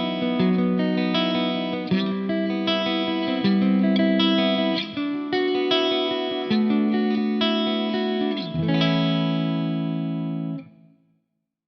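Soloking MS-11 Classic electric guitar played through an amp and effects, letting notes and chords ring with frequent changes. The playing stops and rings out to silence near the end.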